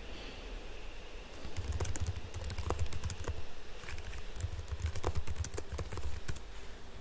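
Typing on a computer keyboard: quick, irregular key clicks in two bursts, one starting about a second and a half in and another about four and a half seconds in.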